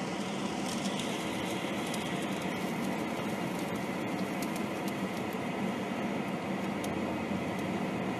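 Steady rushing wind and road noise heard inside a moving car's cabin in a storm, with scattered faint ticks.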